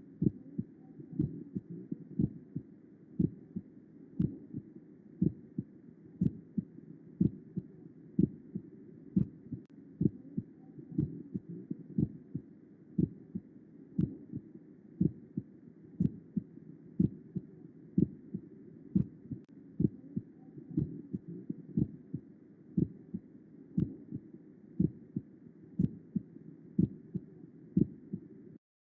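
Recorded heart sounds: a steady heartbeat at about one beat a second, each beat a pair of short low thuds (the first and second heart sounds, lub-dub), over a continuous low hiss.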